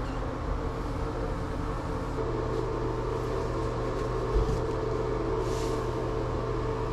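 A steady mechanical hum with a couple of constant tones, like a fan or motor running, with one soft low knock about halfway through.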